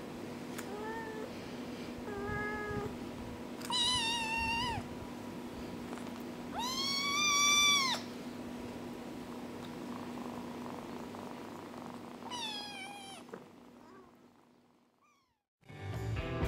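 A kitten meowing, about five high-pitched meows: two faint short ones, then louder ones, the loudest a long meow about seven seconds in and the last falling in pitch. A steady low hum runs underneath, and loud music starts right at the end.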